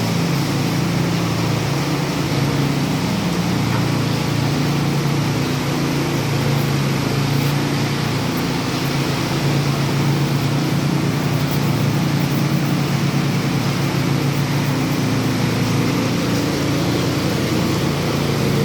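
Power trowel engine running steadily at constant speed while smoothing a concrete floor, an unbroken drone.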